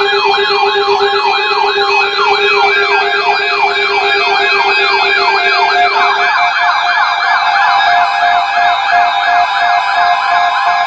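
Electronic alert siren in a rapid yelp, sweeping up and down about four times a second over steady tones. A little past halfway a low steady tone drops out and the sweeps become denser.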